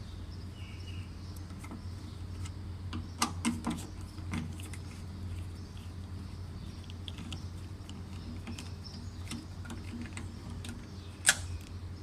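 Scattered light clicks and taps of small plastic and metal parts as a car door lock actuator is unscrewed and opened by hand, with one sharper click about eleven seconds in, over a steady low hum.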